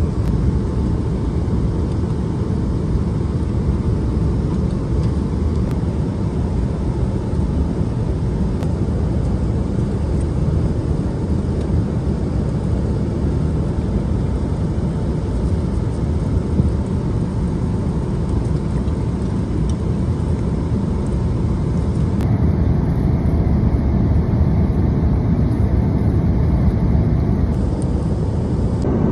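Steady airliner cabin noise in flight: the low, even rumble of the engines and rushing air heard from inside the passenger cabin.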